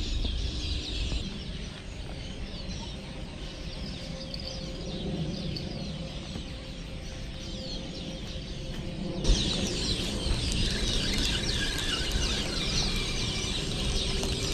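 Many wild birds chirping in a dense, continuous chorus of short calls, which jumps abruptly louder about nine seconds in.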